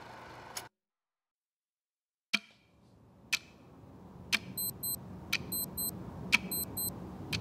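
Music cuts off, and after a moment of silence a clock ticks at exactly one tick a second. From about halfway in, an electronic alarm beeps in quick double beeps between the ticks, over a low hum that slowly grows louder.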